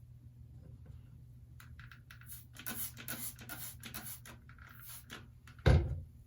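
Irregular rustling and scratching from handling a wet curly wig while its curls are styled, then a single loud thump near the end.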